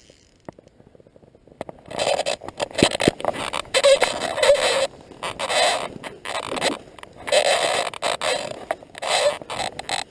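Tall grass and reeds brushing and scraping against the camera in irregular rustling bursts, starting about two seconds in.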